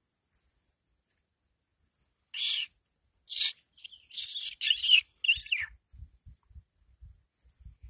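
Leopard frog giving distress screams while a garter snake holds it: four short, high, rasping cries in quick succession starting about two seconds in, the third the longest.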